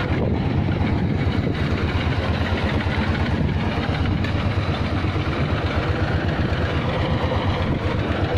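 A fishing boat's engine running steadily with a fast, even low throb.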